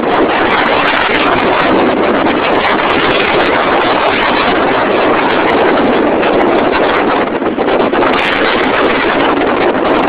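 Strong wind buffeting the microphone, a loud, steady rushing noise.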